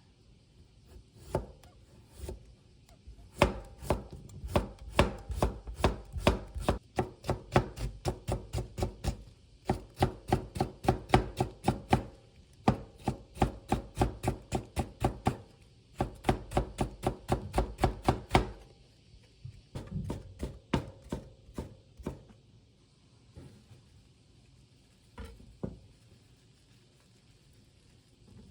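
Kitchen knife chopping on a cutting board, in fast, even strokes of about five or six a second. The strokes come in runs with short breaks, then turn sparse and irregular in the last third.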